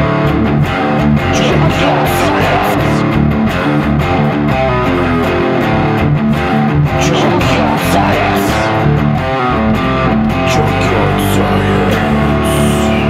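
Guitar-led background music with a steady rhythm.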